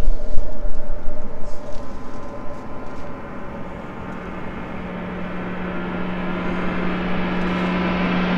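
A loud rushing noise fades away over the first three seconds. From about four seconds in, a sustained low droning tone with higher tones above it swells in and grows steadily louder: the start of gong-like closing music.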